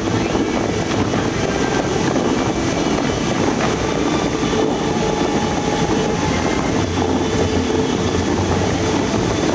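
Steady rushing roar of many tall fountain jets spraying and the water falling back onto the lake surface.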